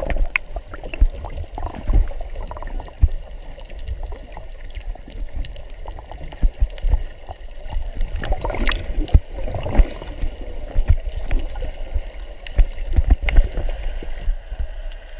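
Muffled water sound picked up by a camera underwater: sloshing and gurgling, with irregular low thumps and sharp clicks throughout.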